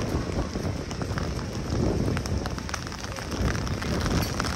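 Rain falling on a city street: a steady hiss with many small, scattered drop ticks over a low rumble.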